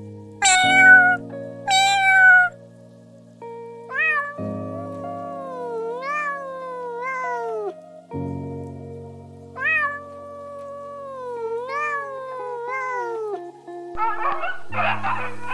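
Domestic cat meowing over background music. First come two short meows falling in pitch, about a second apart, then long drawn-out meows that waver up and down in pitch. Near the end a dog's rough, noisy vocalising begins.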